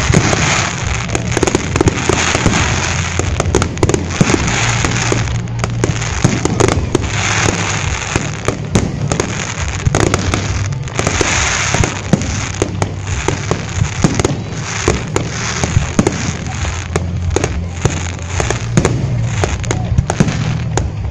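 Fireworks display going off without pause: rapid, overlapping bangs of aerial shells bursting, with stretches of crackling between the louder reports.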